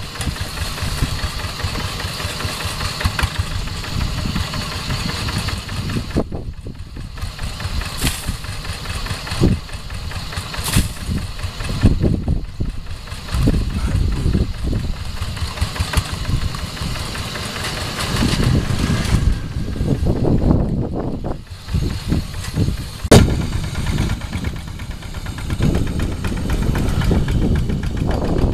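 Kubota RD85 single-cylinder horizontal diesel engine of a two-wheel hand tractor running, its level rising and falling as the load changes. A few sharp knocks stand out over it.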